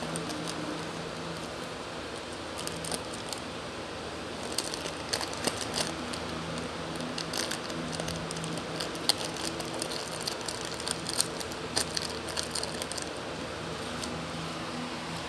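A Shih Tzu chewing and gnawing a plastic snack wrapper: irregular crinkling and crackling, busiest from a few seconds in until near the end, over a steady low hum.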